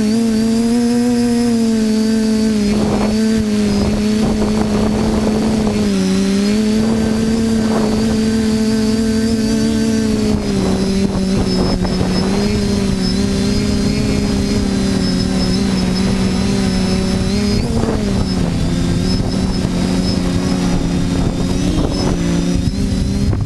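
TBS Discovery quadcopter's electric motors and propellers buzzing in flight, several close tones whose pitch drifts up and down as the throttle changes. Brief rushes of noise come and go at a few points.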